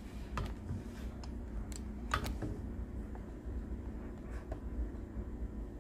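A few scattered light clicks and knocks as a plate and spice shakers are set down on a granite countertop, over a steady low hum.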